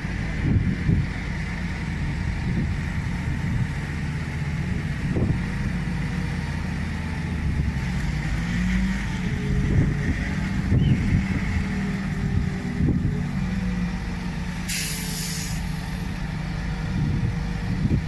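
Heavy diesel engine running steadily, its pitch shifting a little, with a short burst of air hiss about fifteen seconds in.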